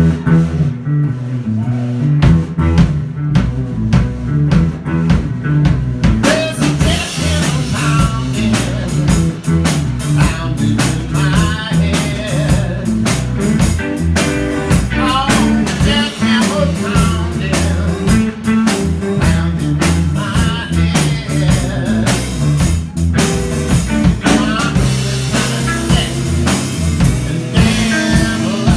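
Blues band playing live: guitar and bass riff over a drum kit, with the cymbals coming in strongly about six seconds in.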